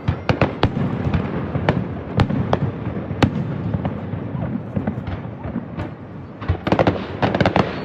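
Fireworks going off: irregular sharp bangs, with a quick run of crackling pops near the end.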